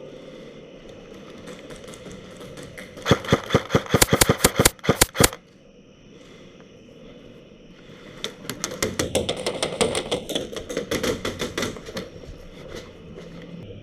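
Airsoft guns firing full-auto: a loud, close burst of rapid shots lasting about two seconds, starting about three seconds in, then a longer, quieter stretch of rapid fire from about eight seconds in.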